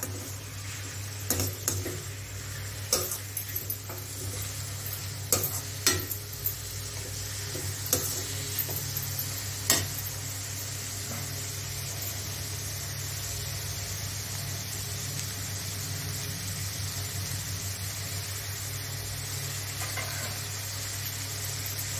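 Sliced onions and green chillies sizzling in oil in a stainless steel kadai, with a perforated steel ladle knocking and scraping against the pan during roughly the first ten seconds. After that the frying sizzles on steadily over a low steady hum.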